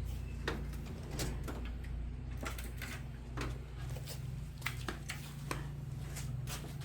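Scattered clicks and clunks of hand tools and parts being handled during engine work, over a steady low hum.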